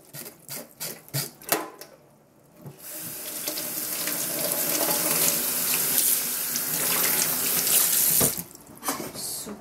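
Kitchen tap running into a stainless steel sink, with water splashing on the metal for about five seconds. Before it come quick rhythmic scrubbing strokes of a sponge. The water stops with a knock near the end, followed by a few more scrubbing sounds.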